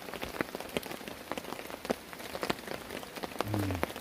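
Heavy rain falling steadily, with many sharp, irregular drops striking close by. A brief low hum comes near the end.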